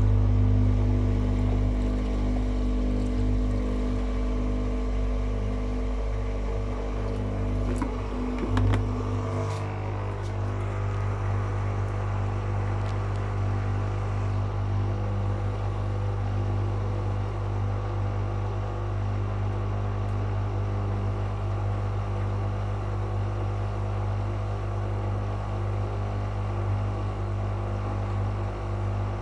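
Whirlpool FL 5065 washing machine running, its drum motor giving a steady low hum with several steady tones. A few knocks about eight to nine seconds in, after which the hum changes a little, as the machine works the drum to balance the load for the spin.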